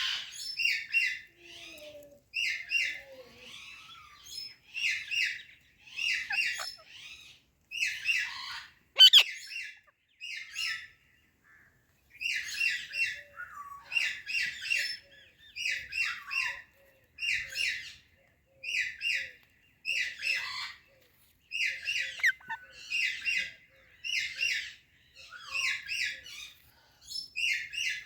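Indian ringneck parakeet calling in short, harsh bursts of two or three notes, repeated about every second and a half with a brief pause near the middle. A sharp click sounds about nine seconds in.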